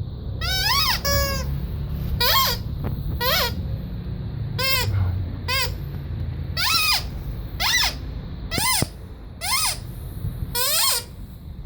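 Rubber squeaky toy squeezed over and over, giving about eleven short squeaks at roughly one a second, each rising and then falling in pitch. A low rumble runs underneath.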